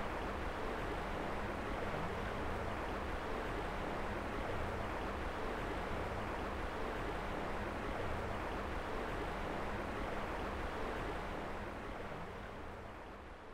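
Flowing river water, a steady rush that fades out near the end.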